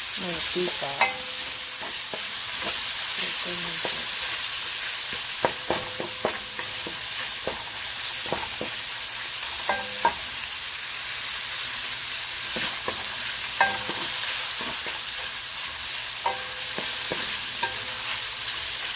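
Chopped bacon sizzling in a metal wok as it renders its fat, with a steady high hiss. A wooden spatula stirs it, scraping and knocking against the pan now and then.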